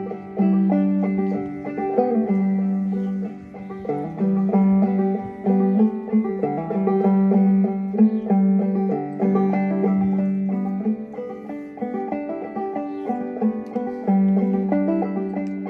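Banjo played clawhammer style: a continuous run of plucked notes, with one low note coming back again and again under quicker higher notes.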